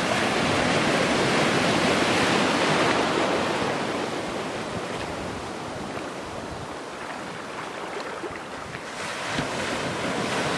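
Ocean surf: a wave washes through loudly and its hiss fades slowly over several seconds, then the next wave swells near the end.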